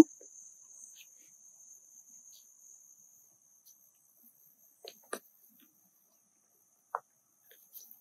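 Insects trilling steadily in a faint, high, thin tone, with a few faint clicks about five and seven seconds in.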